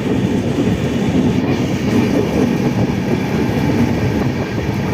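Passenger train running at speed, a steady loud rumble of wheels on rails heard from on board.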